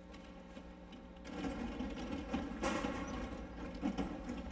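An audience in stadium seating getting to its feet: shuffling and low crowd murmur that swells about a second in, with scattered knocks.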